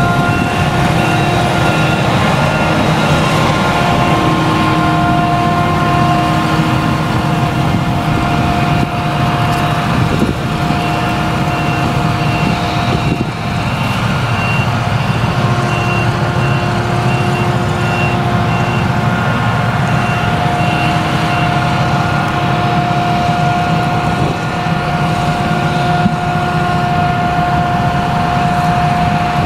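Claas Jaguar 970 forage harvester chopping sorghum, its MAN V8 engine working under load. A steady whine sits over a low rumble.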